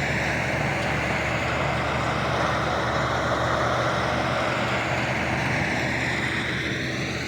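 A heavy vehicle's engine running steadily, with a broad rushing noise over a low drone that shifts slightly as the machine moves.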